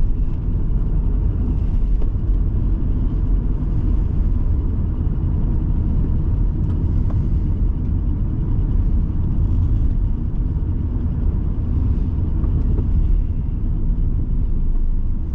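Steady low rumble of a car being driven, engine and tyre road noise heard from inside the cabin.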